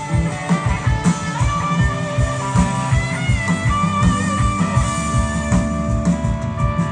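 Live rock band playing an instrumental passage: guitar over bass and a steady drum beat, with no vocals.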